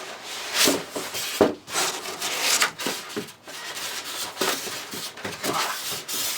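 Cardboard box and styrofoam packing being handled and pulled out: irregular scraping and rustling, with one sharp knock about a second and a half in.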